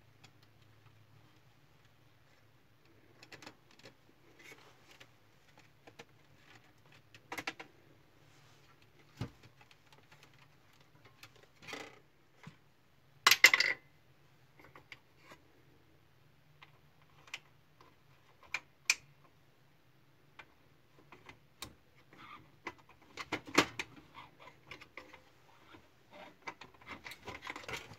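Scattered clicks, taps and light clatter of small plastic and metal printer parts being handled during repair, loudest about halfway through, over a faint steady low hum.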